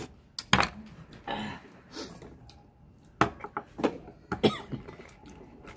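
A raw oyster slurped from its shell, then several sharp clicks and scrapes of a knife on oyster shell as the next one is pried open.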